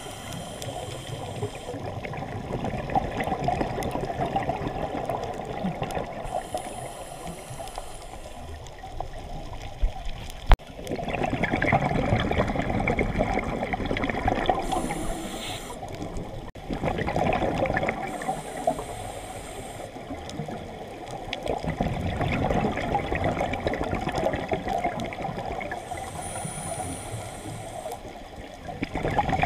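Scuba regulator breathing underwater: a brief high hiss on each inhale and a longer rush of bubbles on each exhale, repeating through several breaths. A single sharp click about ten seconds in.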